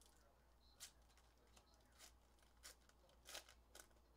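Faint clicks and rustles of trading cards and card packs being handled on a table, about five short sounds spread over a few seconds, over a low steady hum.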